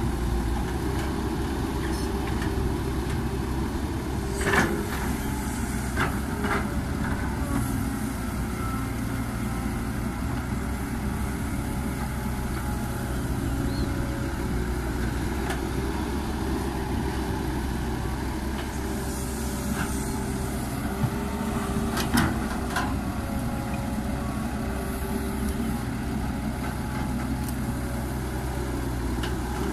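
Caterpillar 312B excavator's four-cylinder diesel engine running steadily under hydraulic work as it digs soil and dumps it into a dump truck. A few sharp knocks stand out, the loudest about four and a half and twenty-two seconds in.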